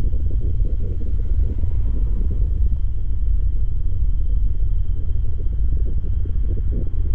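Deep, steady rumble of a large naphtha storage-tank fire burning, heard from a distance, with a faint steady high whine above it.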